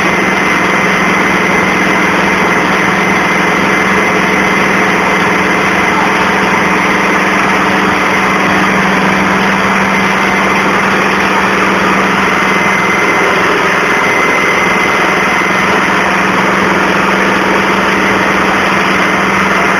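Diesel engines of a John Deere and a Swaraj 855 tractor running hard and steadily as the two pull against each other, chained back to back in a tug-of-war. It is one unchanging drone.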